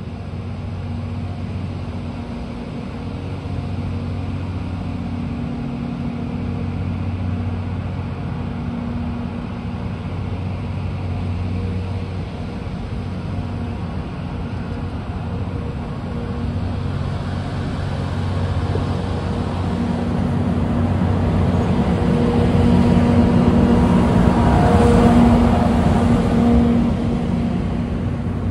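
Train pulling into a station platform: a steady low hum that grows louder, with running noise rising to its loudest near the end.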